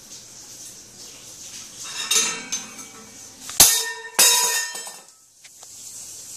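Metal bowl scraped across a cage top, then falling onto a wooden floor: a sharp clang with ringing about three and a half seconds in, and a second ringing clang about half a second later as it bounces.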